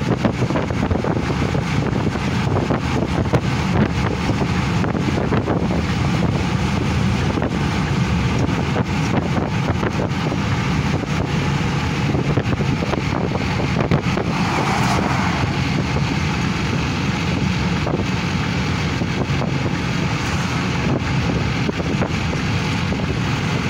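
Strong wind rushing and buffeting the phone's microphone, a steady loud roar.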